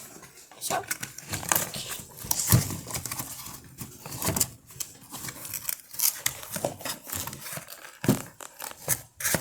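Packaging crinkling and rustling in irregular crackles as slime kit items are unpacked and handled, with a couple of louder knocks.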